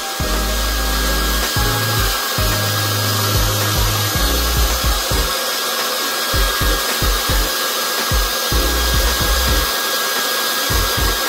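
Hair dryer blowing a steady stream of air with a thin, steady high whine, drying a wet Shih Tzu's coat. Background music with a bass line and beat plays underneath.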